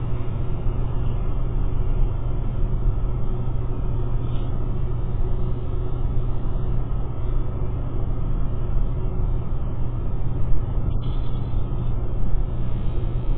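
Steady low rumble with a constant hum underneath, picked up by the nest box's outdoor webcam microphone.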